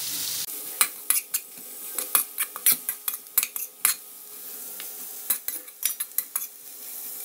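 Metal spatula scraping and clicking against a non-stick kadai as sliced onions and green chillies are stirred, in quick irregular strokes with a short lull around the middle. A light sizzle of the onions frying in oil runs underneath.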